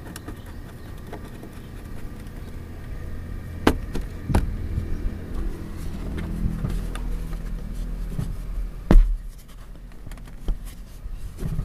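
Scraping and handling noises of a screwdriver fastening the plastic door sill trim over the car's floor carpet, with sharp knocks about four seconds in and a louder knock about nine seconds in.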